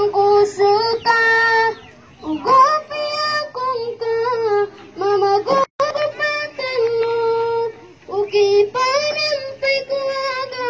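A boy singing a song unaccompanied into a microphone, amplified through a loudspeaker, in long held notes with short breaks between phrases. A low steady hum runs underneath.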